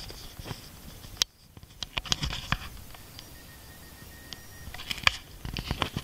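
Footsteps crunching on loose stones and gravel, irregular, quieter for a stretch in the middle and picking up again near the end. A faint steady whistle is heard in the quieter stretch.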